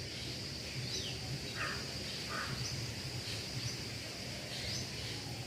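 Faint background of a steady high insect drone with short bird chirps, some falling in pitch, repeating about once a second.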